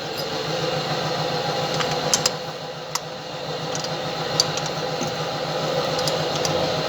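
A steady mechanical hum runs throughout, with a few sharp metallic clicks from wrenches working the lower nut and bolt of a rear shock absorber.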